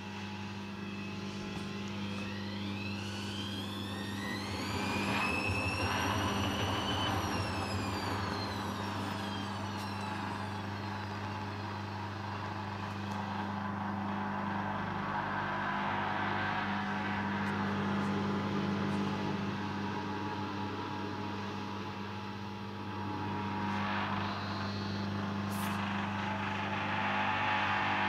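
Hoover front-loading washing machine on its intermediate spin, the motor whining up in pitch for a few seconds and then winding back down over a steady hum, and surging again near the end. The spin is held back by suds lock and an unbalanced load.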